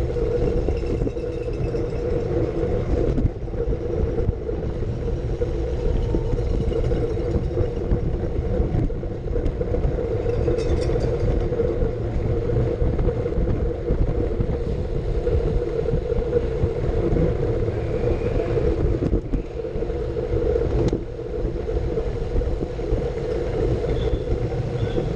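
Wind rushing and buffeting over a bicycle-mounted action camera's microphone as a Brompton folding bike is ridden at race speed, with road and tyre noise and a steady hum underneath.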